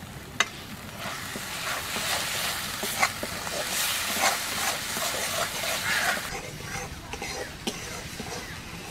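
A metal spatula stirring thick spice paste in a metal kadai, scraping through the masala and knocking sharply against the pan a few times, while the paste sizzles as it fries. The stirring and sizzling are loudest from about a second in to about six seconds, then go softer.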